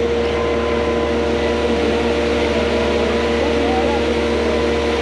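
Concrete pump truck's engine running steadily while pumping concrete, with a faint hum of voices.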